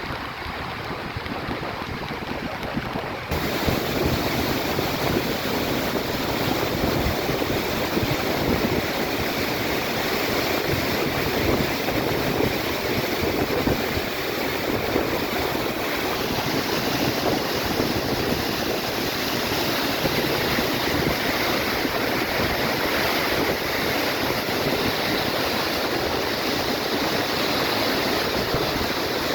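Kanchenjunga Falls rushing steadily, a waterfall gushing down into a pool, with a sudden step up in loudness about three seconds in.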